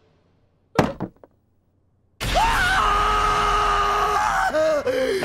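A cartoon voice's long, loud scream of fright, held on one pitch for about three seconds over a low rumble and sliding down near the end. It begins about two seconds in, after a short sharp sound about a second in.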